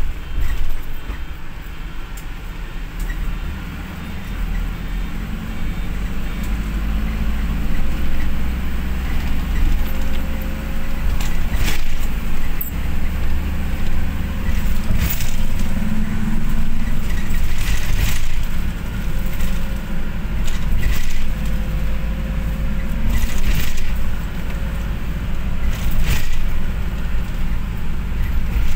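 Steady low rumble of a moving passenger vehicle heard from inside the cabin, with occasional sharp rattles and knocks.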